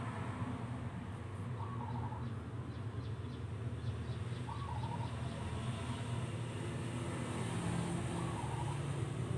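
Steady low background hum, with a short faint chirp about every three seconds.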